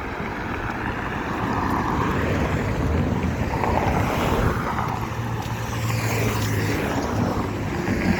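Road traffic passing with a low engine hum that swells and fades through the middle, mixed with wind noise on the microphone.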